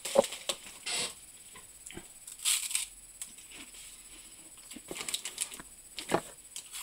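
Plastic snack packets rustling and clicking as they are handled and sorted in a cardboard box: scattered short rustles and light knocks, with a brief louder crinkle about two and a half seconds in.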